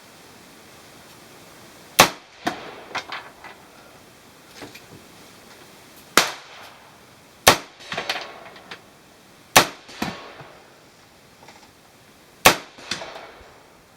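M4-style carbine fired one shot at a time, five shots a few seconds apart at an uneven pace. Each loud crack is followed by a short trail of fainter cracks and echoes.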